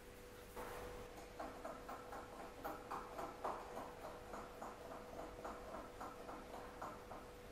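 Hand wire whisk beating thick red velvet cake batter in a glass bowl: a quick, even rhythm of soft strokes, about four a second, mixing in the last of the sifted dry ingredients.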